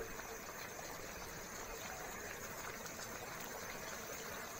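Thick yogurt-and-spice masala bubbling and sizzling steadily in an aluminium pot as it is fried down until the oil separates.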